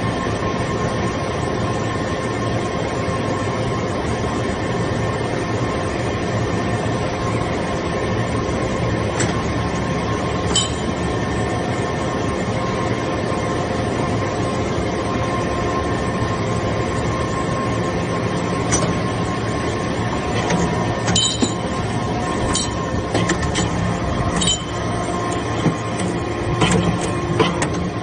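Metal chips briquetting press running, its hydraulic power unit giving a steady mechanical hum with several held tones. Scattered sharp metallic clinks come through it, more often in the second half.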